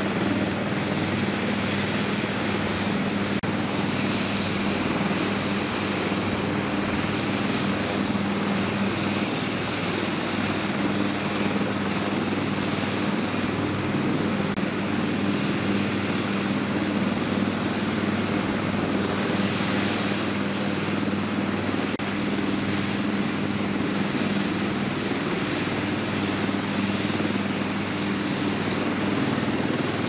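Bell AH-1Z Viper and UH-1Y Venom helicopters running on deck with rotors turning. Their turbine engines whine and the rotors sound over them, steady and unchanging throughout.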